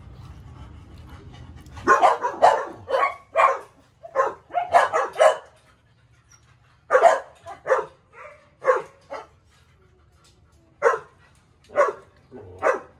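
Three-week-old Aspin puppies barking in short bursts. The barks start about two seconds in and come in clusters of several at a time.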